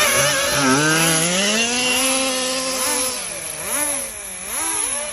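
Small two-stroke engine of a radio-controlled model car revving: the pitch climbs and holds for a couple of seconds, then the throttle is blipped in several quick rises and falls.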